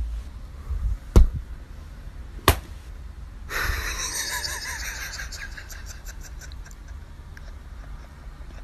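Room sound with three short sharp knocks about a second apart over a low rumble, then a steady rustling hiss with faint crackles from about three and a half seconds in.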